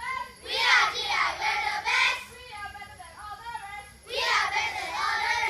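A group of children singing, in two loud phrases, the first about half a second in and the second about four seconds in, with quieter voices between.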